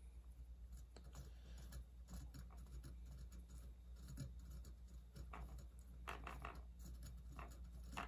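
Faint scratching and light ticking of a dubbing loop being spun with a spinner tool, twisting the fur into a rope; a few louder ticks come past the middle.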